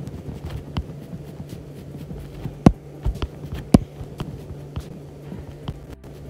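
Stylus tapping and clicking on a tablet's glass screen while sketching: irregular light taps, with two louder knocks a little before the middle, over a steady low hum.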